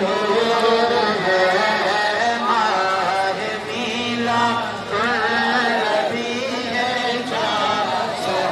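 A group of men chanting a devotional refrain together, several voices overlapping.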